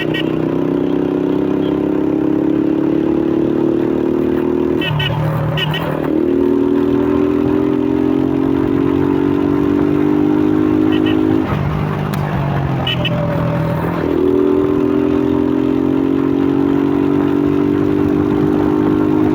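Suzuki Fiero's single-cylinder four-stroke motorcycle engine, breathing through a K&N pod air filter, running under steady throttle while being ridden. Its note drops out briefly about five seconds in and again for a couple of seconds past the middle, as the throttle is eased off, then picks up again.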